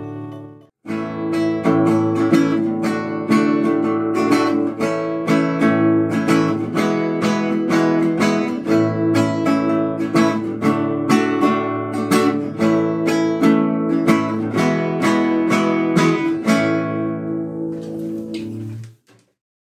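Background music of a strummed acoustic guitar, playing steadily from about a second in and stopping shortly before the end.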